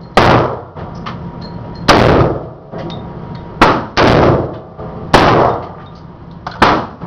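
AR-15 rifle shots fired one at a time: six sharp reports, irregularly spaced one to two seconds apart, two of them in quick succession just past halfway, each with a short echoing tail.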